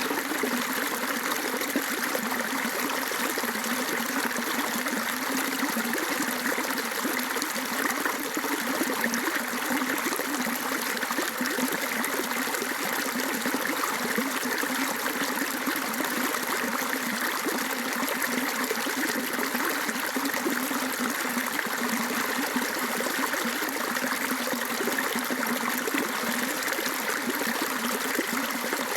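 Water flowing steadily, a continuous trickling, rushing flow of rain runoff after rain.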